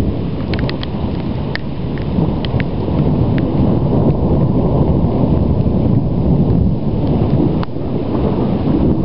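Low rumbling thunder rolling on without a break, swelling a few seconds in, from a storm of near-constant lightning. A few faint sharp ticks are scattered through it.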